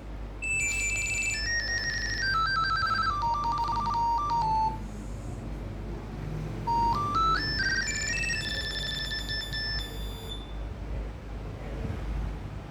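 A Nokia 6100 ringtone played through a Nokia 3110 classic's loudspeaker: a run of short electronic notes stepping down in pitch, a pause of about two seconds, then a run stepping back up.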